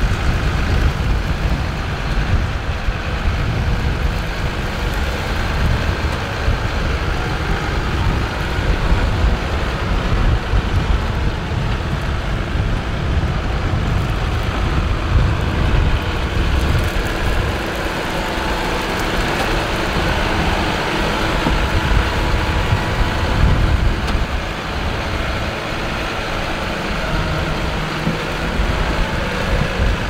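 Tractor engine running while pulling a plough, with strong wind gusting and rumbling on the microphone.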